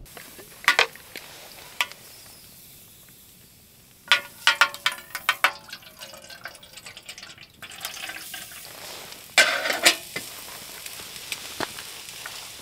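Water poured from a bottle into a metal kettle on a small wood-burning tent stove, with metal clinks and clatter of the kettle and bottle a few times.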